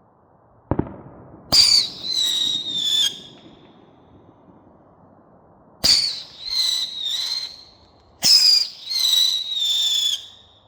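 Shogun Tri Whistle Roman candle firing three shots. Each shot is a sharp launch followed by three short, high-pitched whistles in a row, each falling slightly in pitch. The shots come about a second in, near the middle and near the end.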